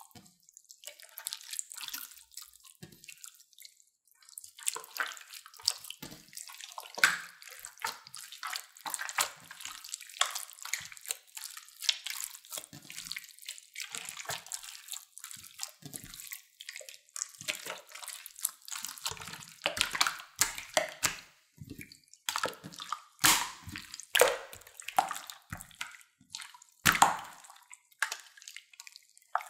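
Clear slime mixed with store-bought slime being squeezed and kneaded by hand, giving irregular wet clicks, squelches and small pops. A few pops stand out louder, the loudest near the end.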